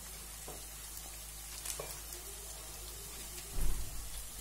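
Sliced onions and spices frying in oil in a kadai, a steady soft sizzle with a few faint crackles. A dull thump about three and a half seconds in.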